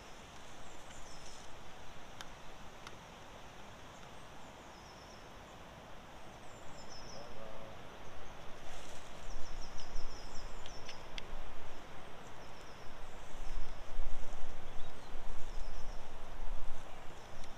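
Outdoor ambience of birds singing in short repeated trills over a steady hiss, with a few faint clicks. From about halfway, low rumbling buffets, like wind on the microphone, grow louder and become the loudest sound.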